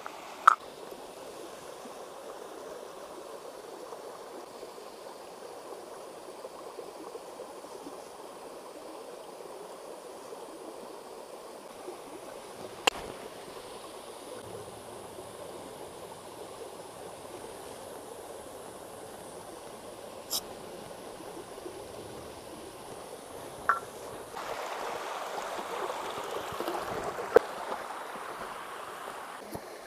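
Steady rushing of a river and small waterfall, with a few sharp clicks. The water grows louder near the end.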